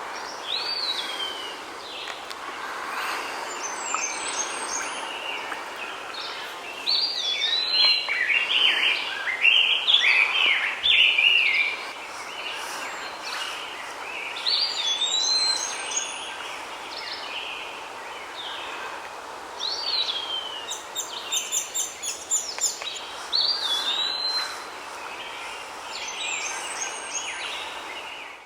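Honeyeaters calling: clear whistled notes that slide down in pitch, repeated every few seconds, with a burst of busy chattering from about seven to twelve seconds in. A steady hiss lies under the calls.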